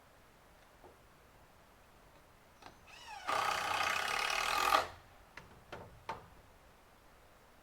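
A power tool spinning up and running loud for about a second and a half, then stopping abruptly, followed by a few light knocks.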